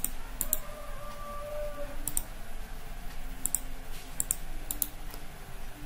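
Computer mouse and keyboard clicks: about seven short, sharp clicks spaced irregularly, over a low steady hum.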